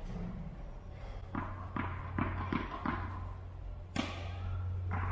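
Tennis racket striking a ball with a sharp crack about four seconds in, ringing on in a large indoor hall. Before it comes a run of five light knocks a little under half a second apart, and one more knock follows the hit.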